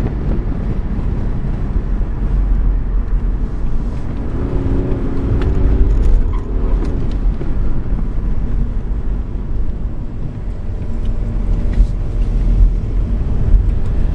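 BMW 335d's twin-turbo diesel straight-six running under load, heard from inside the cabin over a steady low rumble of engine and road noise. About four and a half seconds in, the engine note rises and then falls away again.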